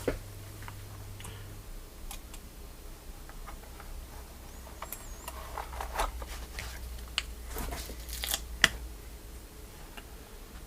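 Scattered small clicks and taps of a keyboard case being handled while its slip-on feet are fitted, with one sharper click near the end.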